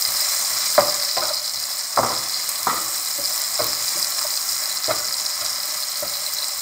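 Sliced onions, green chillies and garlic sizzling steadily in hot oil in a frying pan, with a wooden spatula scraping and knocking against the pan at irregular moments as they are stirred.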